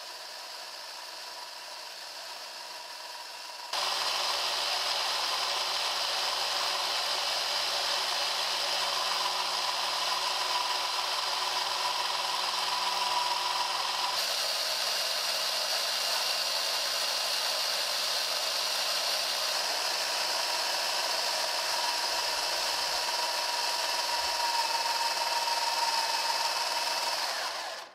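Eight small 12 V DC motors driving a 3D-printed plastic gearbox start about four seconds in. They run steadily with a whine and gear noise, winding up a heavy load, and stop just before the end.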